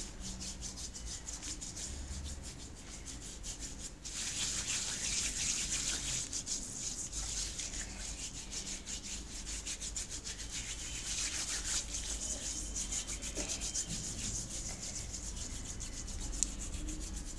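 Hands scrubbing against each other with a gritty paste of ground coffee and lemon juice: a continuous scratchy rasping of the grounds on skin, a little quieter for a moment about three seconds in.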